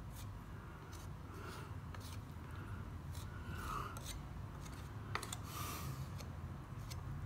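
Small steel leaf trowel scraping over cornice cement on a plaster cornice, sharpening up its profile: short, repeated scraping strokes, with a sharper click about five seconds in.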